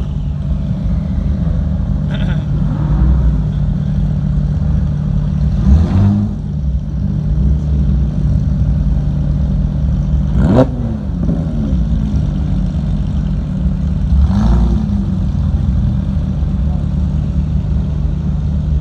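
Sports car engines idling in a slow-moving line, with an engine revved sharply three times, about six, ten and fourteen seconds in, each rev rising and falling back quickly.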